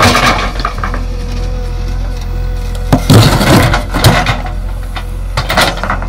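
JCB 3DX backhoe loader's diesel engine running steadily while its bucket digs into stony soil, with crunching and scraping of rocks and earth three times: at the start, about three seconds in, and again near the end.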